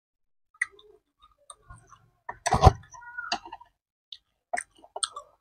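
Scattered light clicks and taps of chopsticks and fingers against a plastic food tub and a plate, close to the microphone, with a louder knock about two and a half seconds in.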